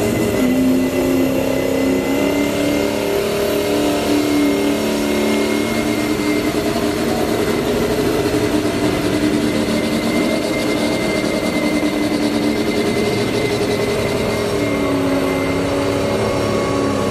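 Diesel pickup truck engine held at high revs under heavy load, pulling a weight-transfer sled in a truck pull, with a steady high whistle over it. The revs sag briefly and pick back up near the end.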